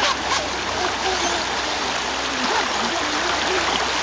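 Shallow stream rushing steadily over rocks in a small rapid.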